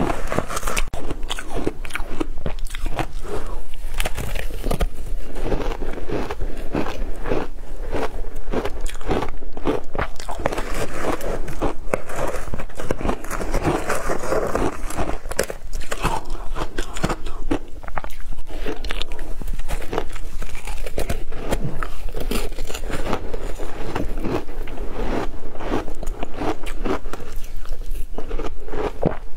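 Matcha-flavoured ice being bitten and chewed, a dense, continuous crunching and crackling with no pauses.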